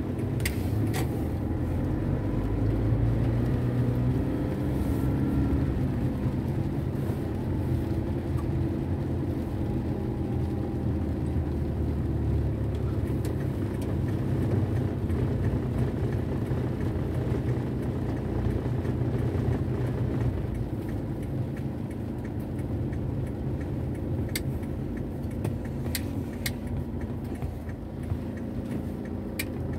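Steady low rumble of a car's engine and tyres on a wet road, heard inside the cabin while driving slowly in rain. A few sharp ticks come near the end.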